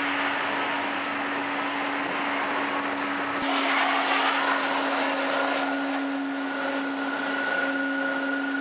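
Boeing 777's twin jet engines at idle as the airliner taxis, a steady rushing whine over a low hum, with a higher whine joining about five seconds in.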